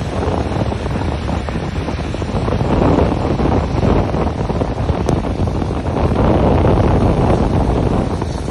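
Cyclone-force wind buffeting the microphone in a loud, steady rumble that swells and eases, with the sea surging underneath.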